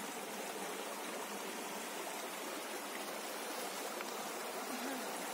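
Rocky river running over boulders and small rapids: a steady, even rush of water.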